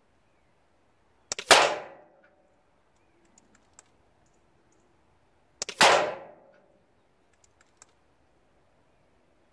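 Two shots from an Air Arms S510 SL Carbine .22 pre-charged pneumatic air rifle, about four seconds apart, each a sharp report that dies away over about half a second. A few faint clicks come between the shots.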